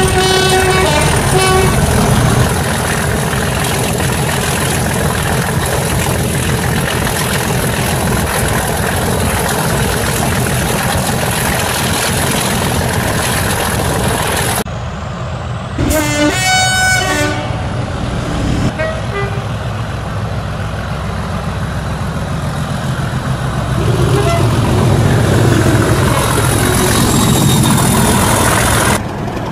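Diesel locomotive engine sound running steadily, as for a Class 37, with a horn fading out at the start and a few short horn toots about halfway through.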